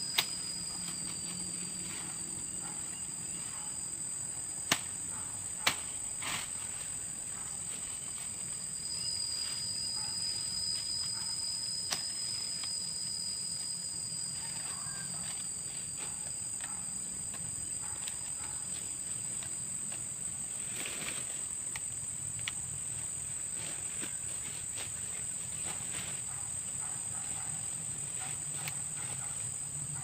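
Insects drone in a steady, high-pitched chorus, with a thinner high tone that comes and goes. Four sharp snaps break through, one right at the start, two about five and six seconds in, and one near twelve seconds.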